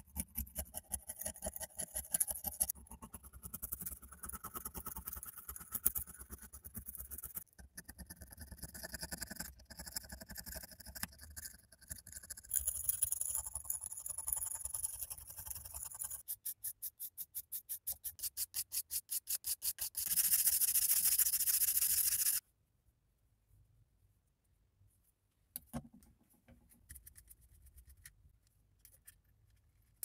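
Flat metal scraper blade scraping caked rust and dirt off a corroded pocket-knife blade in quick short strokes. Past the middle the strokes come as a fast even run, then give way to a couple of seconds of louder steady scraping that cuts off suddenly. After that it is quiet apart from a few light clicks.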